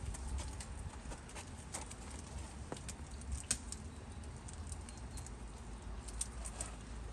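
Scattered light clicks and taps at irregular times over a low steady rumble.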